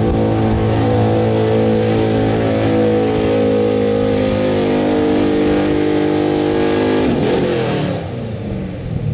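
1972 Chevrolet pickup's engine running at full throttle under load, pulling a weight-transfer sled, its revs easing slowly down. About seven seconds in the throttle is lifted and the revs fall away as the pull ends.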